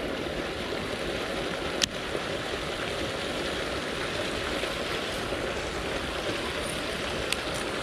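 Water from a drain pipe pouring into a concrete irrigation canal, a steady rushing splash, with a sharp click about two seconds in and another near the end.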